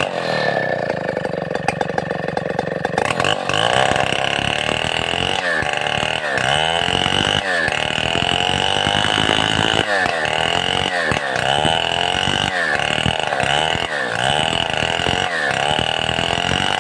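Stihl 070 two-stroke chainsaw running hard, its engine speed dipping and recovering about once a second.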